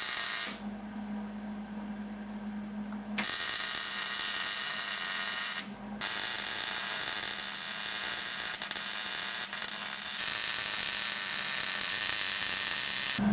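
Electric welder welding a steel upright to a muffler clamp in three runs: a short burst at the start, one of about two and a half seconds from about three seconds in, and a long one of about seven seconds from six seconds in, with a steady hum in the gaps.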